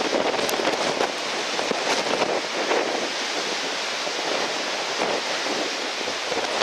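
Strong wind rushing over the microphone with breaking surf: a steady rushing noise with no let-up.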